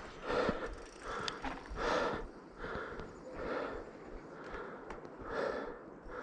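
A person breathing hard, in and out about once a second.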